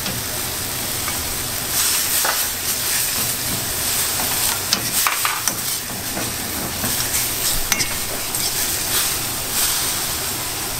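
A wok of stock and seafood over high heat: a steady sizzle and hiss as it works up toward the boil. A stirring utensil knocks and scrapes against the metal wok now and then.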